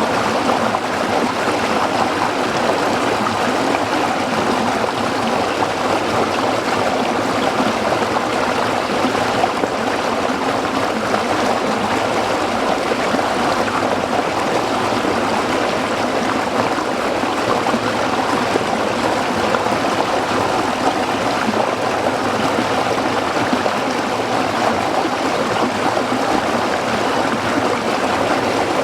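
A small stream running over rocks: steady splashing and trickling water, even and unbroken.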